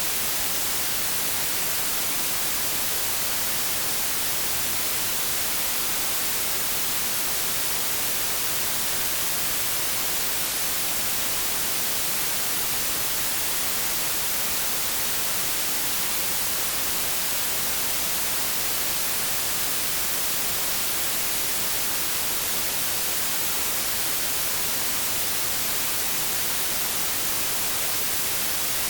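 White noise: a steady, even hiss, strongest in the high frequencies, with no change in level.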